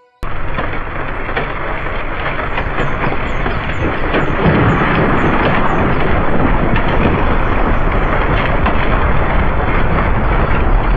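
A loud, dense rushing rumble that cuts in abruptly right at the start, with a heavy low end, building over the first few seconds and then holding steady.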